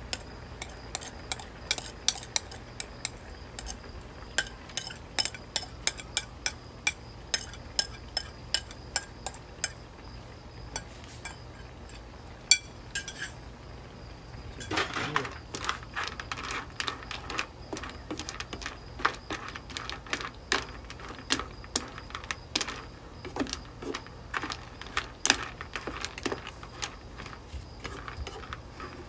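A spoon clinking and scraping against a bowl as chopped shallots are tipped into a pan, in many sharp separate clicks. From about halfway through, a spatula stirs and scrapes in a nonstick wok, with denser clicks.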